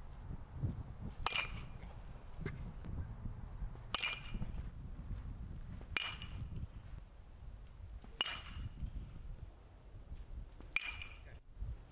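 Baseball bat striking pitched balls in batting practice, a sharp ping with a short metallic ring, five times about every two to two and a half seconds. Low wind rumble underneath.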